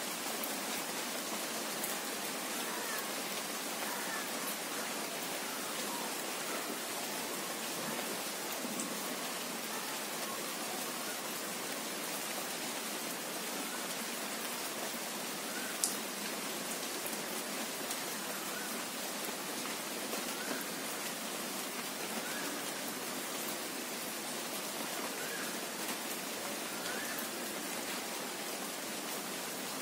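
Steady rain, an even hiss, with one sharp tick about halfway through and a few faint short chirps now and then.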